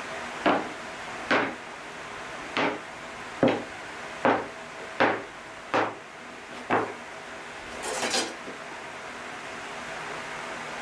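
Hardwood cutting-board strips being flipped and set down one after another on a wooden worktop: eight sharp wooden clacks about a second apart, then a short scraping shuffle as the pieces are pushed together.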